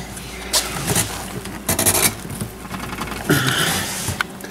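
Plastic scraping and rubbing in three short bursts as an HID bulb is pushed and twisted into the socket of a pickup headlight housing, its prongs being worked into place with some force.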